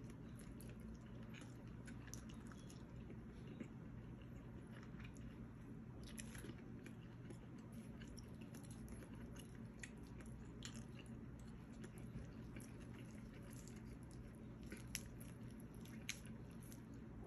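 Faint chewing of roast chicken, with a few scattered soft wet clicks, over a low steady hum.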